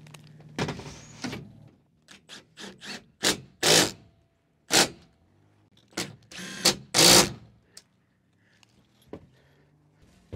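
Rooftop solar-panel mounting work: a string of separate knocks and clanks, with a few short bursts of scraping or whirring noise, the loudest about 4 and 7 seconds in. A low steady hum fades out in the first two seconds.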